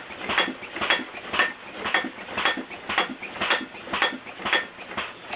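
Homemade pneumatic alarm rig built into a bed, driven by an air compressor, clanking in a steady rhythm of metallic knocks about twice a second.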